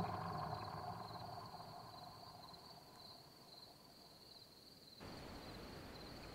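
Film music dying away over the first few seconds, under a faint steady trill of crickets. About five seconds in, a cut brings up a faint hiss of night ambience while the crickets go on.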